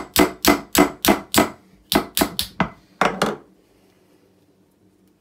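Quick metal-on-metal taps of a small hammer on a bait-boat motor, driving the armature shaft through its new main bearing with the motor resting on a lump hammer head. About three taps a second in three short runs with brief pauses, stopping about three and a half seconds in.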